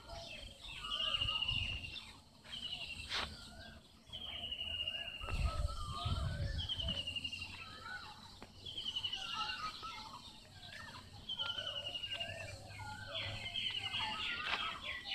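Birds calling over and over: a high, buzzy note that falls slightly in pitch, repeated about every one and a half to two seconds, with lower warbling notes in between. A brief low rumble comes about five seconds in.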